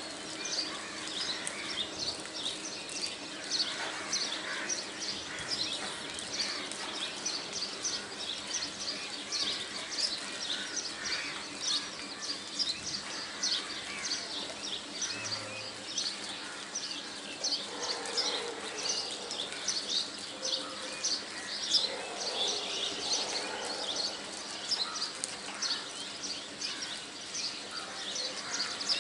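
Many small birds chirping at once: a dense, continuous chatter of short, high chirps.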